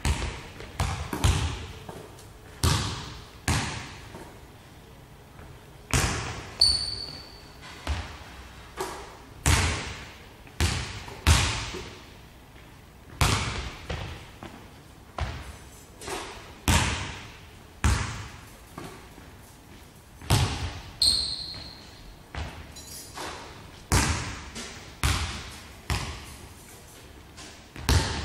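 Basketball bouncing on a hardwood gym floor, a long uneven series of separate echoing bounces about one a second, with two brief high sneaker squeaks on the court.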